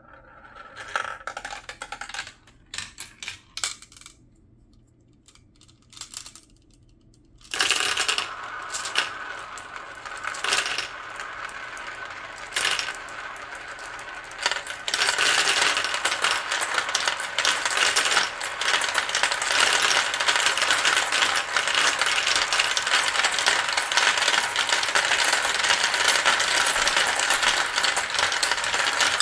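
Glass marbles clicking and rattling through a plastic marble run. A few scattered clicks come first. A clatter starts about a quarter of the way in. About halfway, a bowlful of marbles is poured into the funnel bowl, and from then on there is a dense, continuous rattle as the marbles circle the bowl and run down the tracks.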